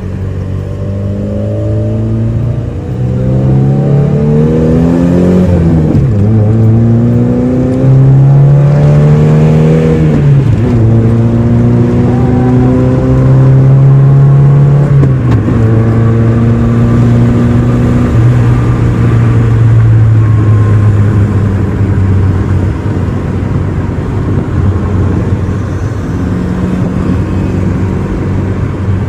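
1993 Toyota Starlet EP81's four-cylinder engine heard from inside the cabin, accelerating up through the gears. The engine note rises, drops at each upshift about 6, 10 and 15 seconds in, then settles to a steadier cruise.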